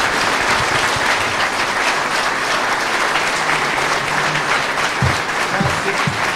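Audience of a few dozen people applauding steadily.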